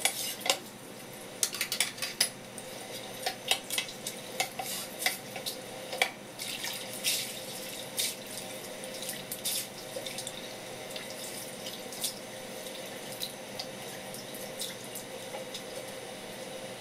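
A thin stream of tap water running steadily onto a wooden cutting board and over a gutted red gurnard, with many sharp clicks and taps from the fish being handled, thick in the first half and fewer later.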